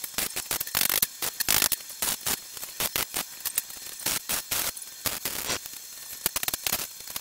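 Electric arc welding: the arc crackles and spits in fast, irregular sharp pops.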